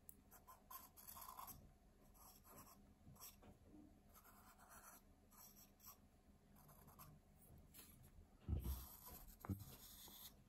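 Faint scratching of drawing strokes on paper, short strokes one after another. A couple of soft low bumps come near the end.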